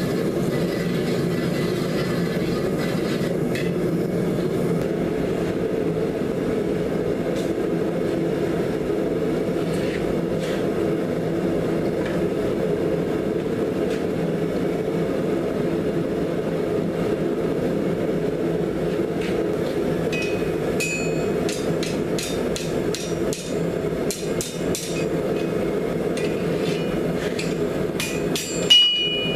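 Gas forge burner running with a steady rushing noise throughout. From about twenty seconds in, a run of hand-hammer blows strikes hot rebar on a steel anvil, each blow ringing sharply.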